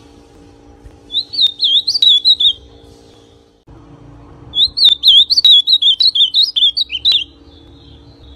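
Young male ultramarine grosbeak (azulão pardo) singing two phrases of its quick, warbling whistled song, the first about a second in and the second, longer one about halfway through. A steady low hum runs underneath.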